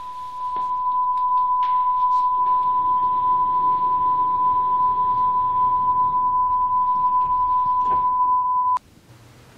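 A steady electronic beep at a single pitch, like a test tone. It grows louder about half a second in and cuts off suddenly near the end, with a few faint clicks beneath it.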